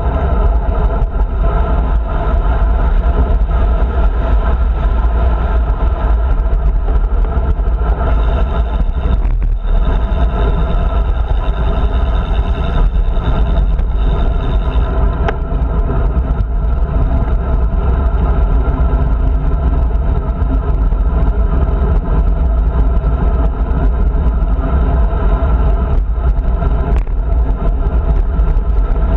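Loud, steady wind rumble on the microphone of a handlebar-mounted GoPro on a road bike that is riding along.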